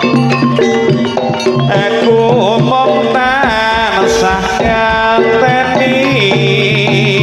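Live Javanese jaranan gamelan music: kendang hand drums beat busily under sustained gong and metallophone tones. A sliding, wavering melody line rises and falls over them in the middle of the passage.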